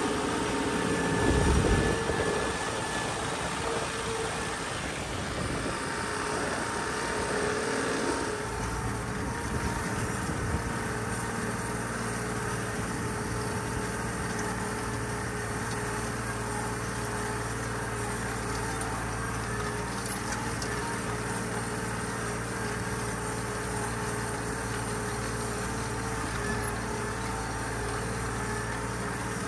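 John Deere tractor engine running steadily while pulling a PTO-driven rotary hay tedder through cut hay. A louder rush of noise, like wind buffeting the microphone, comes between one and two seconds in.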